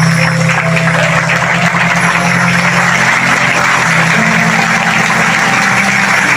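Crowd applause, a dense steady clapping, with music underneath holding low sustained notes that change pitch twice.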